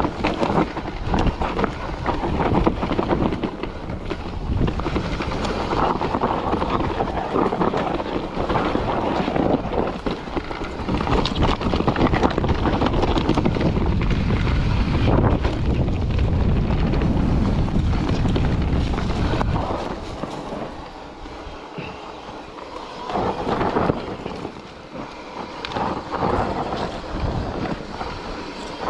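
Wind buffeting the camera microphone while an electric mountain bike descends a rough dirt trail, with tyres rumbling and the bike knocking and rattling over bumps. It is loud and uneven, and eases off about two-thirds of the way through.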